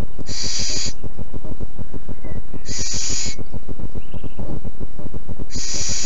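Little owl giving three hissing calls, about two and a half seconds apart, over a steady low crackling noise.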